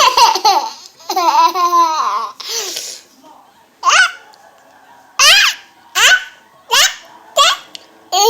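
Baby laughing: a run of high-pitched giggles at the start, then five short bursts of laughter roughly a second apart.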